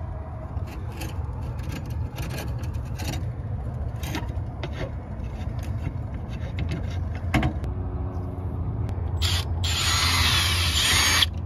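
Scattered light clicks and knocks of metal parts being handled, then a cordless drill starting up about two thirds of the way in and driving a bit into the awning arm's clevis to clean its rusty threads: a steady motor whine followed by loud scraping with squeals near the end.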